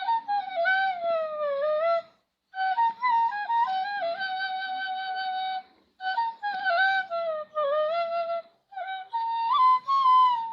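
Bengali bashi, a bamboo transverse flute, playing a slow folk melody solo. It plays in phrases of gliding, ornamented notes, including one long held note, with short breath pauses between them.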